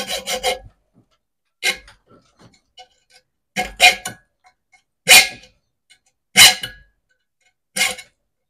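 Hand cutting and scraping at a speaker's plastic terminal connector to cut it free: a quick run of rasping strokes that stops shortly after the start, then single, separate scraping strokes about every second and a half.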